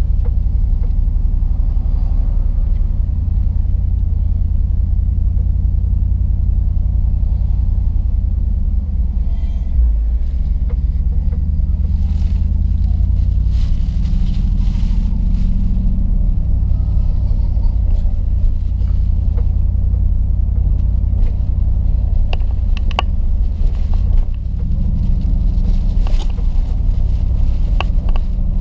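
A 2010 Jeep Grand Cherokee SRT8's 6.1-litre HEMI V8 running through a Borla S-Type cat-back exhaust, a steady deep rumble. The tone shifts briefly about ten seconds in and again a few seconds before the end.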